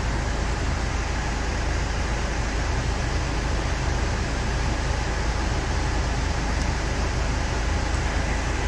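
Steady low rumble and hiss inside a car's cabin: the vehicle's road and engine noise, unchanging throughout.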